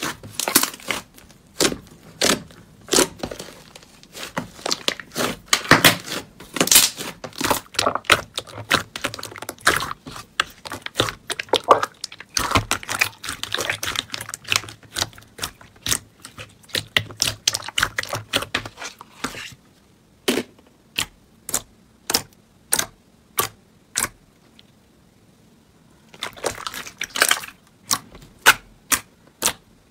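Hands kneading and pressing slime, crackling and popping as air pockets burst under the fingers. Dense crackling for roughly the first two-thirds, then a run of sharp, evenly spaced pops, a bit more than one a second, broken by a short crackling burst near the end.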